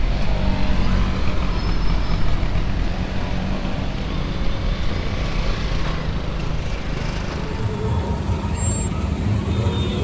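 Street traffic with motor-vehicle engines running close by: a steady low engine hum over road noise.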